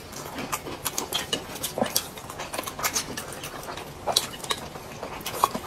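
Eating sounds: chopsticks clicking against plates and a glass bowl, with irregular wet chewing and lip-smacking as dumplings are eaten.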